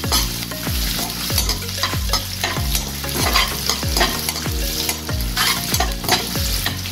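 Metal spatula scraping around a metal kadhai about twice a second, stirring chopped garlic and ginger frying in hot oil with a steady sizzle.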